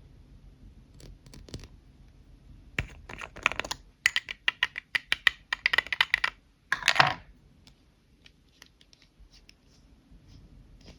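Hands handling lipstick tubes and packaging: scattered clicks, then a quick run of taps and clicks, then a short scratching rustle about seven seconds in.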